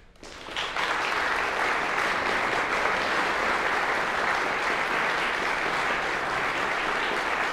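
Audience applauding: the clapping breaks out from silence just after the start, swells within the first second, then goes on steadily.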